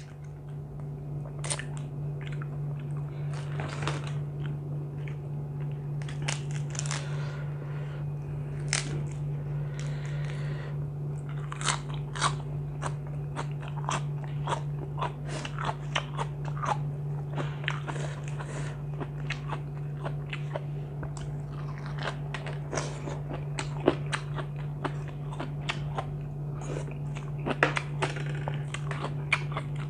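Close-miked chewing and crunching of a person eating, with many short crisp bites scattered throughout. A steady low hum runs underneath.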